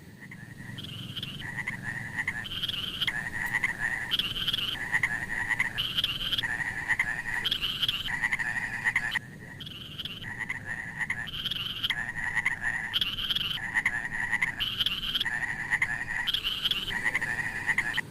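Frogs calling in a steady repeating pattern. A short high note alternates with a longer, lower note, about every second and a half, with a brief break about nine seconds in.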